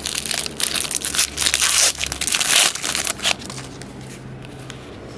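Crinkling and crumpling of a foil trading-card pack wrapper as it is handled and torn open. It stops about three and a half seconds in.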